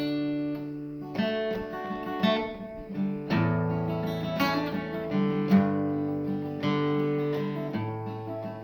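Acoustic guitar strumming chords as a song's instrumental intro, a new chord struck about once a second and left ringing.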